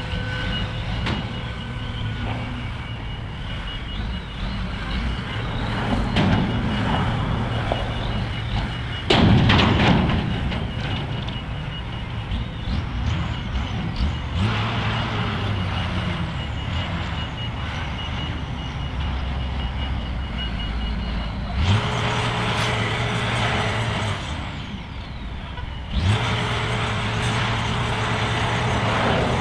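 Heavy diesel construction machinery running steadily while a crane lifts a steel tank dome. A rapid high beeping, typical of a vehicle backup alarm, stops about 21 seconds in. There is a loud bang about nine seconds in.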